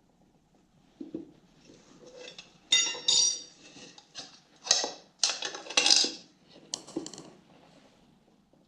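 Metal tools clanking and ringing against metal, a cluster of sharp hits from about three to seven seconds in.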